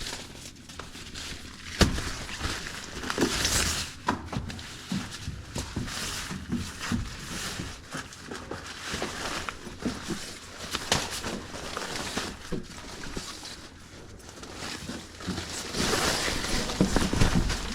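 Handling of a sleeping mat and its nylon sack: irregular rustling with scattered light knocks and clicks, louder twice, briefly a few seconds in and again near the end.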